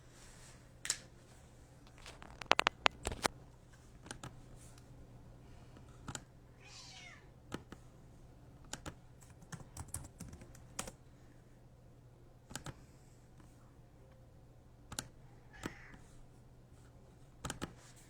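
Computer keyboard typing: scattered sharp clicks and taps over a faint steady hum, with a cluster of loud clicks about two and a half seconds in. A short high pitched sound, sliding in pitch, comes about seven seconds in.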